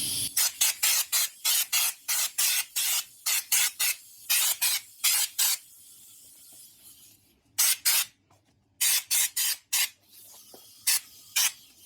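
Spray-on bed liner being sprayed onto small indicator covers in many short hissing bursts, about two to three a second for the first half, then after a brief pause a few more scattered bursts near the end.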